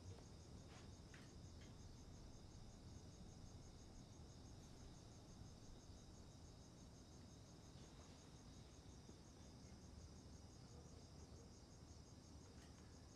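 Faint night ambience of crickets chirping in a steady, evenly pulsing high trill, over a low background rumble.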